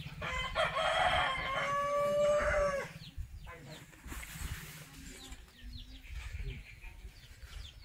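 A rooster crowing once: one long drawn-out call of about two and a half seconds that falls away at the end. Faint short chirps follow.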